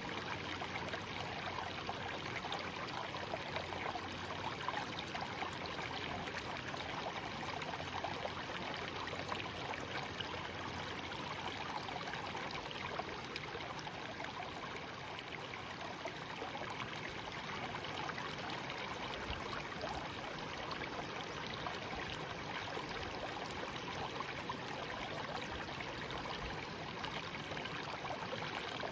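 Shallow stream flowing over stones, a steady babbling and trickling of water.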